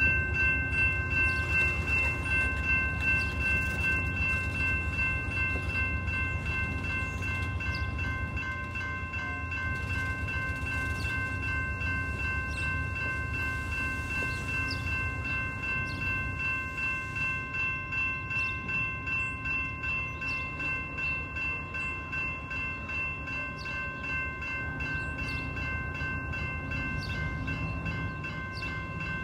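Railroad grade-crossing warning bell ringing in a fast, steady pulse while the gates are down. Under it, the rumble of a passing Amtrak Downeaster train, with a P42 diesel locomotive, is loudest over the first several seconds and then fades as the train clears the crossing.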